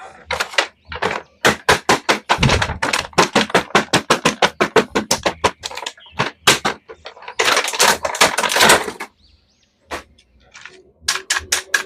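A rapid run of sharp clicks and taps, several a second, with a short pause about ten seconds in.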